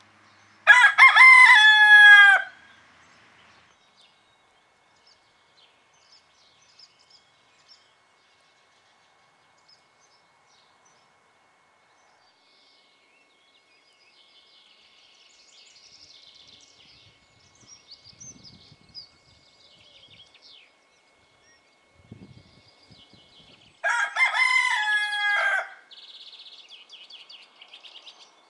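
A cockerel crowing twice, a full cock-a-doodle-doo of under two seconds each time, once about a second in and again near the end.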